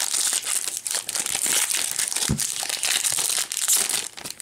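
Foil wrapper of a Pokémon TCG Evolutions booster pack crinkling and crackling as it is handled and torn open.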